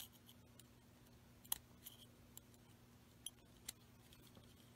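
Near silence with a low steady hum and about six faint, sharp metal clicks, the loudest about a second and a half in, as a small screwdriver and brush wire are worked at a terminal screw on an old Lionel toy-train motor.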